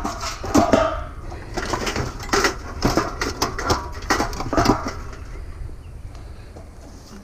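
Irregular clattering and knocking of handled objects for about five seconds, then quieter.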